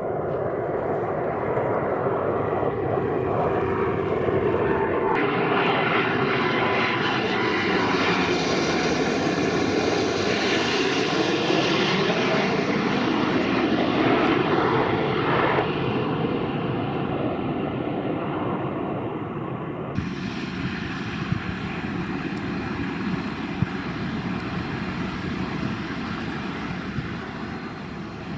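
Jet engines of a Boeing 777-300 airliner on landing approach, gear down, passing low overhead. The sound builds to a peak in the middle with falling pitch as the plane goes by, then eases. About two-thirds of the way through it changes abruptly to a steadier engine sound with a few sharp clicks.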